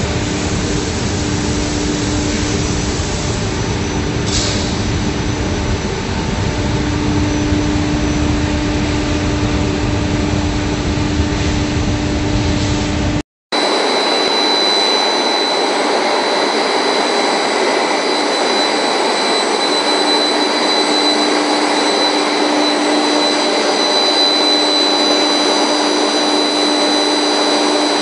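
Textile finishing machinery running steadily, a loud even mechanical noise with a low hum. About thirteen seconds in it breaks off for a moment and resumes as a different steady machine noise with several high whining tones.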